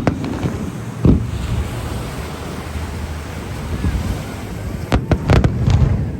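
Aerial fireworks going off: a boom about a second in, then a quick cluster of several bangs near the end, over a steady low rumble.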